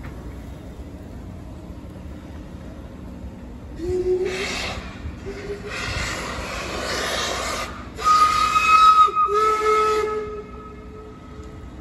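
Steam locomotive pulling away: loud hissing bursts of steam start about four seconds in, with short low whistle notes, then a long, steady steam-whistle blast about eight seconds in, the loudest part, which stops a little before the end.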